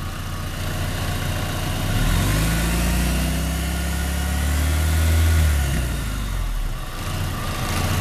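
1997 Volkswagen Jetta engine idling with the hood open, revved up about two seconds in, held for a few seconds, then let back down to idle. It is a test rev of a hot engine to see the oil pressure climb on a gauge.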